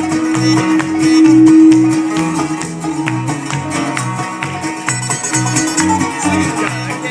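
Live bluegrass band playing an instrumental break between sung lines: quick picked string notes over a steady walking bass pulse, with a held note ringing through.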